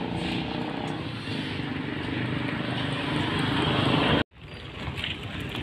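Vehicle engine and road traffic noise, growing louder for about four seconds, then cut off abruptly by a moment of silence before it resumes.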